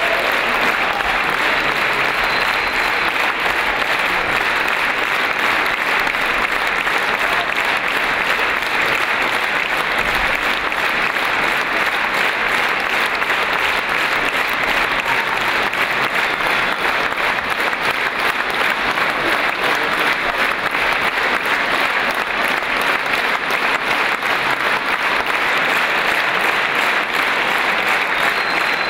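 A large concert-hall audience applauding, a dense, steady clapping that does not let up.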